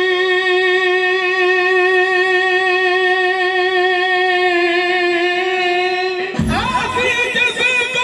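Qawwali lead singer holding one long sustained note, with a slight wobble and a small dip near the end. About six seconds in, the full qawwali party comes in at once with drum strikes, harmonium and more voices.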